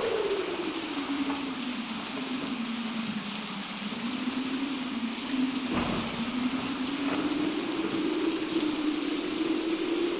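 Storm sound effect: steady rain under a howling wind whose pitch sinks and then slowly rises again, with a sharp thunder crack about six seconds in.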